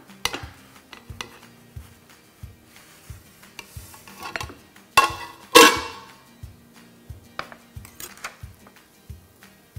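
Metal spatula and springform pan base clinking and scraping as a cake is slid off the base onto a cake stand. About five seconds in come two louder metal clatters with a brief ring.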